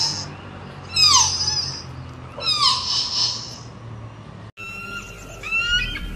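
Deer fawn bleating: high, squealing calls that fall in pitch, about a second and a half apart. After a brief break near the end, a bird of prey gives short, sharp calls that drop in pitch.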